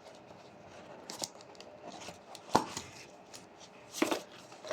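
Hands handling a watch and its packaging: scattered small clicks and rustles, with a sharp click about two and a half seconds in and another louder click about four seconds in.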